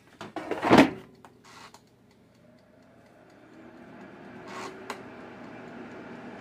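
Chefman air fryer basket pushed shut with a clatter, then the timer dial is turned with a click and the fryer's fan starts, building to a steady whir.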